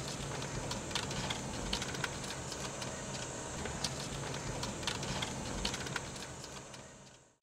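Car driving along a bumpy dirt track, heard from inside the cabin: a steady engine and road noise with frequent knocks and rattles, fading out near the end.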